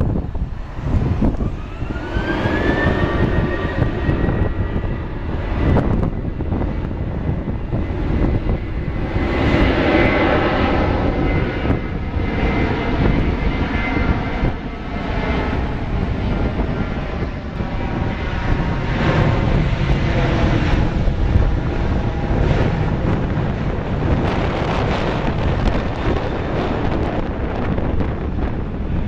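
Boeing 737-800's CFM56-7B turbofan engines during the takeoff run: a whine climbs in pitch over the first few seconds as the engines spool up, then holds steady over a continuous loud jet rumble.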